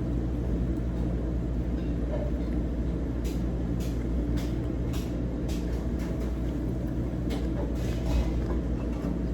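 Steady low mechanical hum of a restaurant dining room, with scattered light clicks of cutlery on a plate from about three seconds in.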